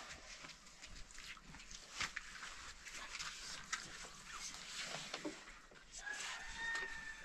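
Faint scattered clicks and rustling, then a faint drawn-out animal call from about six seconds in, dipping slightly in pitch as it ends.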